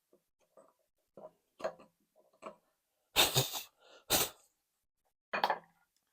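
A hand chisel scraping and tapping out the bottom of a recess cut in a wooden block for a nut: a few faint short scrapes, then two louder knocks about three and four seconds in and one more near the end.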